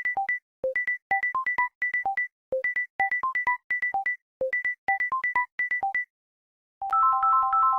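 Android phone ringtones: a fast electronic melody of short, clipped beep notes, about six to seven a second in quick repeating phrases. After a short gap near seven seconds in, a different ringtone starts with fuller, overlapping chime notes.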